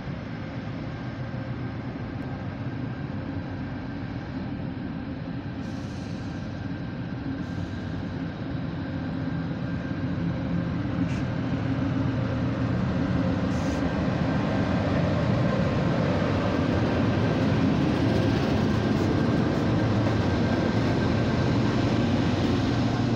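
Two NR class GE diesel-electric locomotives hauling a freight train slowly past: a steady engine drone that grows louder about halfway through as the locomotives come alongside.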